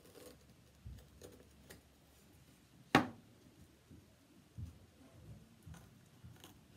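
Faint scraping and ticking of an X-Acto knife trimming plastic window screen along the edge of a wooden picture frame, then one sharp knock about three seconds in as the frame is set down flat on the table, followed by a few soft bumps of handling.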